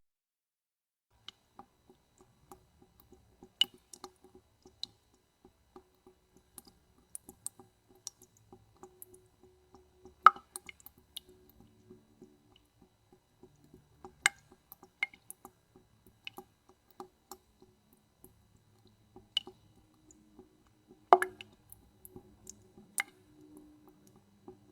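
Water drops dripping irregularly, single drips at uneven intervals, mostly faint, with a few louder drops about 10, 14 and 21 seconds in.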